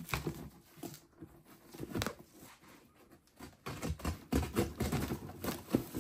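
Dry shredded newspaper packing rustling and crackling as gloved hands dig through it in an old fibreboard box, in scattered crisp crackles, with a quieter pause about two and a half seconds in and denser crackling toward the end.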